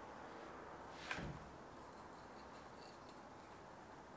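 Faint room tone with a single light tap about a second in, from handling a hot glue gun and small foam blocks at the bench.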